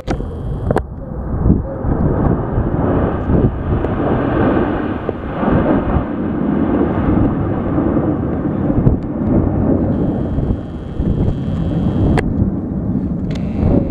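Jet engines of a six-ship formation of fighter jets flying over in a loud, steady rumble that builds over the first couple of seconds.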